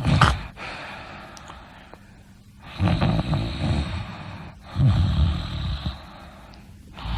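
A person snoring: two fluttering snores about three and five seconds in, each lasting about a second and a half, with the end of a snore at the start and another snore beginning near the end.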